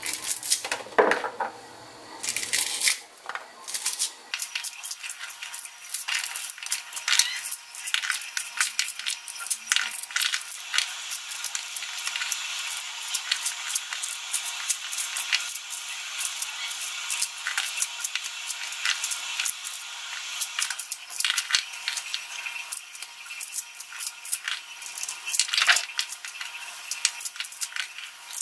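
Sweet corn kernels being prised off the cob by hand and dropping onto a ceramic plate: a dense, unbroken stream of small clicks and crackles.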